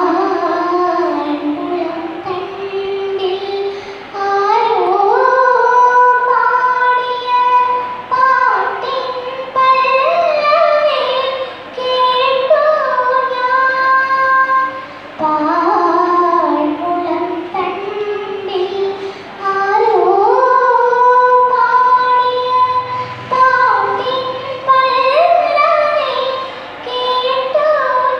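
Young girl singing solo into a microphone, in long held melodic phrases with short breaks between them.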